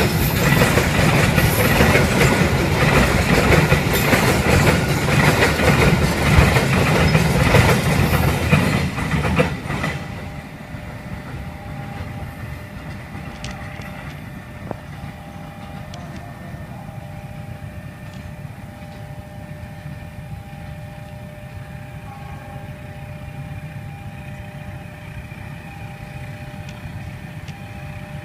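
Container freight train's loaded flat wagons rolling past close by, a loud, dense rattling rumble, which cuts off abruptly about ten seconds in. A much quieter outdoor background with faint steady tones follows.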